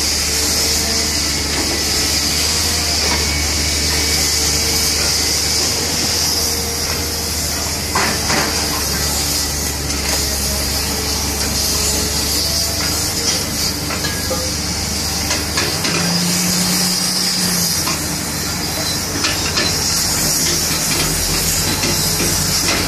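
Heavy scrap-handling machinery running: a steady engine drone with a constant hiss, and a few metal clanks. A short, higher hum rises over the drone about two-thirds of the way through.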